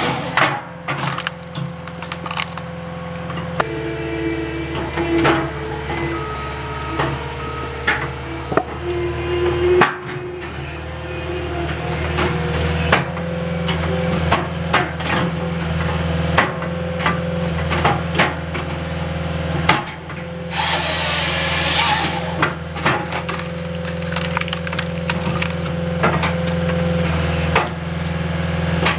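Skid steer and Halverson HWP-140B firewood processor running steadily, with frequent sharp cracks and knocks of wood being split and falling. About twenty seconds in, a harsh rushing burst lasts about two seconds.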